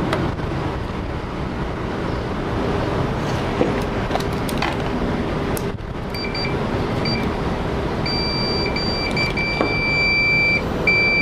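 Digital multimeter's continuity buzzer beeping as the probes are touched to points on a motherboard. It gives a few short, broken beeps about six seconds in, then longer beeps from about eight seconds, ending in a near-steady beep. The beep signals that the two probed points are connected. A steady background hiss runs underneath.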